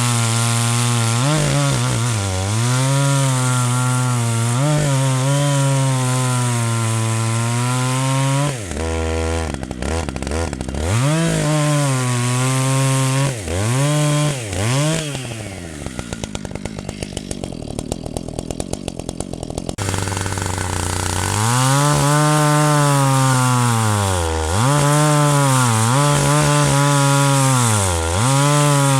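Zomax 74 cc two-stroke chainsaw cutting wood at full throttle, its engine pitch sagging again and again under load and picking back up. About halfway through it drops to a lower, quieter, uneven run for a few seconds, then revs up and cuts again.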